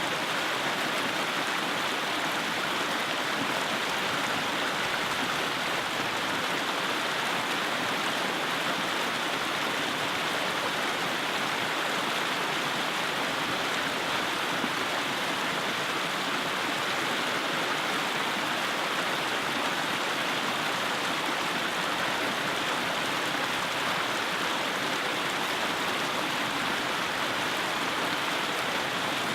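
Mountain creek rushing over and between rocks: a steady, even rush of water.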